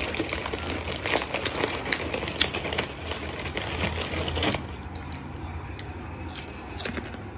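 Crunchy yellow chips being chewed close to the microphone: a dense crackle of crunches for about four and a half seconds, then quieter, with a few fresh crunches near the end as another chip is bitten.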